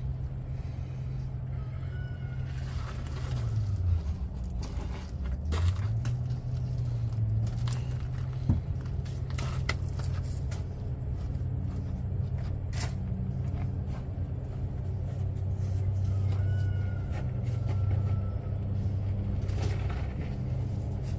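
A steady low engine drone that dips in pitch about four seconds in and then recovers. Scattered clicks and scrapes of handling sound close by.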